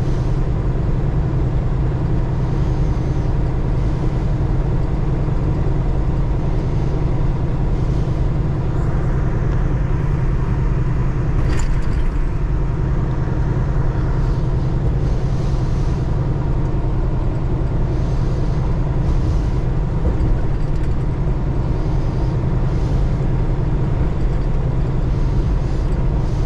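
Semi-truck running at road speed: a steady, even engine drone with road noise, and one sharp click about eleven and a half seconds in.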